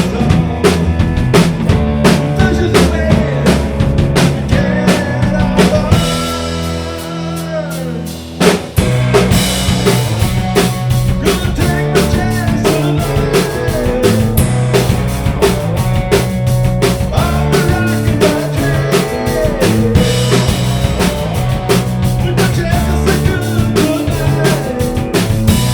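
Rock band music with a steady drum-kit beat. About six seconds in, the drums stop for a couple of seconds while a held note slides down in pitch. A sharp hit then brings the full band back in.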